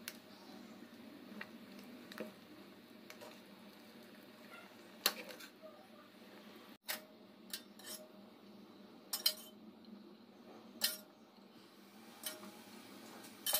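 A metal ladle stirring a pot of fish curry, knocking against the metal pot in a handful of sharp, separate clinks over a low, steady hiss.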